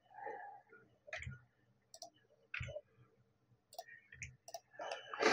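Scattered clicks of a computer mouse and keyboard keys, a handful spread over a few seconds, with a louder burst of noise near the end.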